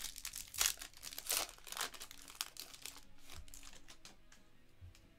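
Plastic trading-card pack wrapper crinkling and tearing as it is ripped open by hand, loudest in the first two seconds, followed by quieter rustling and clicking as the cards are handled.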